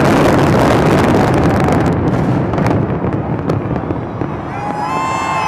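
Fireworks going off in a dense barrage of sharp cracks over a low rumble, thinning out after about three seconds. Near the end, one long high-pitched note sounds above it.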